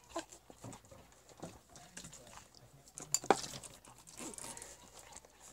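Homemade glue slime being kneaded and squeezed by hand in a bowl: faint sticky squelches and small clicks, with one louder squelch about three seconds in.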